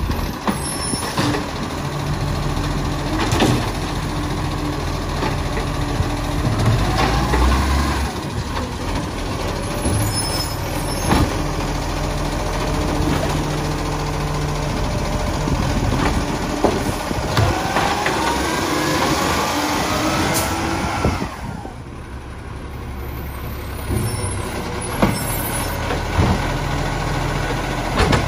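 Iveco Acco side-loader garbage truck idling at the kerb while its hydraulic arm lifts and tips wheelie bins. Sharp knocks come as the bins bang against the hopper. The engine rises into a climbing whine for a few seconds about two-thirds of the way through as the arm works.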